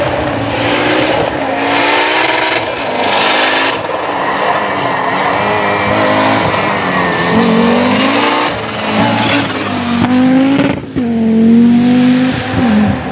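Audi Quattro Group A rally car's turbocharged five-cylinder engine driven hard: its pitch climbs several times and drops back at each gear change or lift. The loudest pull comes near the end.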